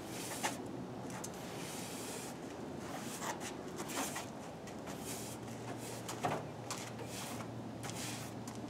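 A hand brush sweeping thick dust and debris off a car's hood and front bodywork in irregular scraping strokes, some quick pairs and some single sweeps.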